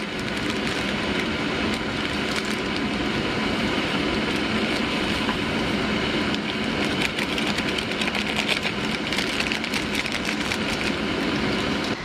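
Crinkling and rustling of a foil soup packet being torn open and emptied into a cup, with fine crackles that come thickest in the second half, over a steady rushing noise.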